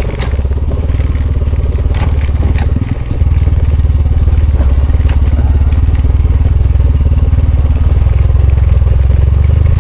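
Motorcycle engine running under load on a rocky trail, a steady low rumble that grows louder about three seconds in. A few sharp knocks and clatters come over it in the first three seconds.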